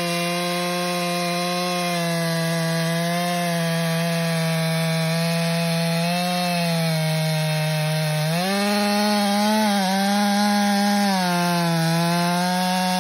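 Stihl MS400 C 67 cc two-stroke chainsaw running at full throttle while cutting through a large log. Its engine note dips slightly, climbs sharply a little past halfway, and settles back down about two seconds later.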